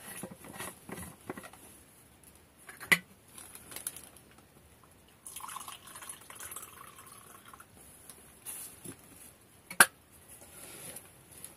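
Hot tea being poured from a thermos into a cup, a trickling pour lasting a couple of seconds around the middle. Two sharp clicks, one about three seconds in and a louder one near the end, come from handling the thermos stopper and cup.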